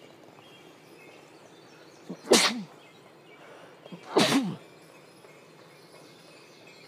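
Two short, loud vocal bursts about two seconds apart, each a sharp hissing blast with a brief pitched tail.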